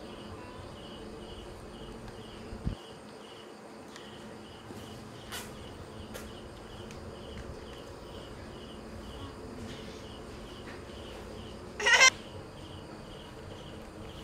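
An insect chirping steadily, about two short chirps a second, with a low knock about three seconds in and one short shrill squeak near the end, the loudest sound.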